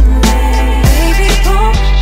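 Background music with deep bass and a steady beat.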